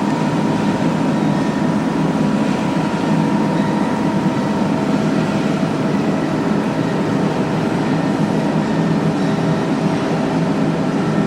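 Lotze CNC press brake's motor running steadily with a continuous hum, a faint higher whine dropping out about halfway through.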